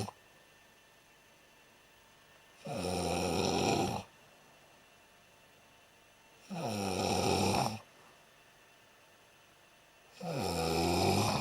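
Someone snoring: three long snores spaced three to four seconds apart, each about a second long and dropping in pitch as it starts.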